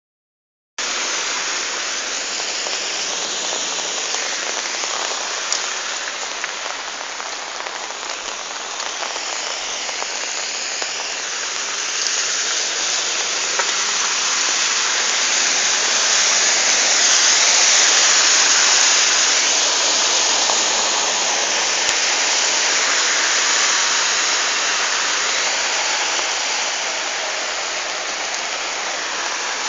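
Heavy rain falling without letup, a steady hiss of rain on the street, swelling a little louder past the middle.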